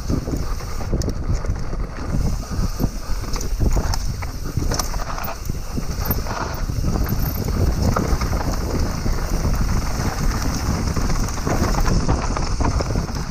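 Mountain bike descending a dirt singletrack, heard from the rider's camera: wind buffeting the microphone over the rumble of tyres on dirt, with frequent clicks and rattles from the bike over bumps.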